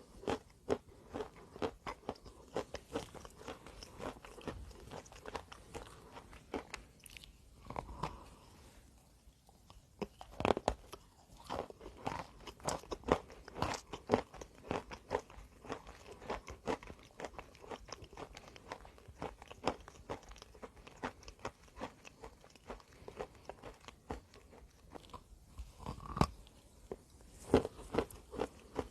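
A person biting and chewing pieces of chalk, a run of sharp, irregular crunches with a short lull about eight to ten seconds in.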